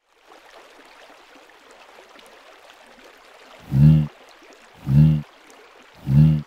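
Steady sound of running water, like a flowing stream. About four seconds in, three short, loud, low-pitched sounds come a little over a second apart.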